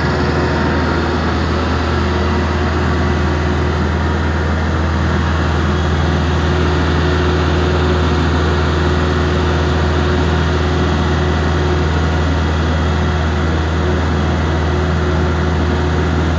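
Engine of a small fishing boat running steadily under way, a constant low drone, with the wash of the wake along the hull.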